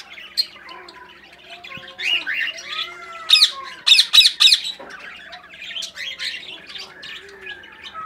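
Pet parrots chattering and chirping, with a quick run of loud, harsh squawks about three and a half to four and a half seconds in.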